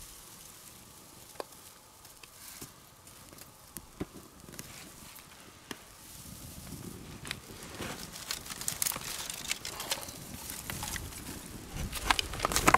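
A small campfire of dry grass, feather sticks and twigs being lit and tended: scattered snaps and crackles that grow busier and louder toward the end.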